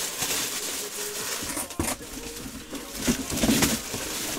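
Rustling and handling sounds, with a single sharp knock a little under two seconds in.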